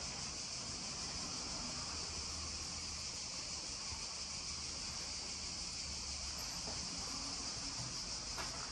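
A steady high-pitched hiss, even and unbroken, over a faint low rumble; no distinct knocks or other events.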